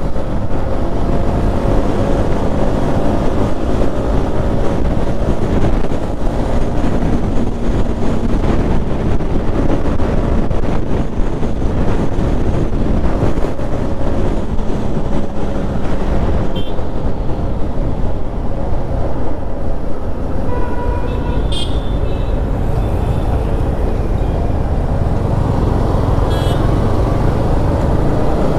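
A Yamaha MT-15's 155 cc single-cylinder engine running at speed in top gear, with heavy wind rush over the helmet microphone. A couple of short vehicle horn toots come from the traffic about three quarters of the way through, and the engine note settles lower near the end as the bike slows in a lower gear.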